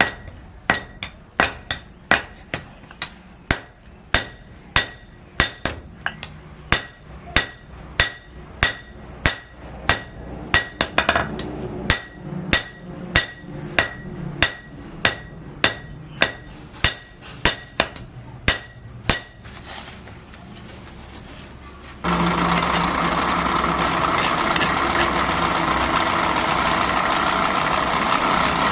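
Hand hammer striking iron on an anvil in a steady rhythm, about two ringing metallic blows a second. After a short pause, a loud steady machine noise starts near the end.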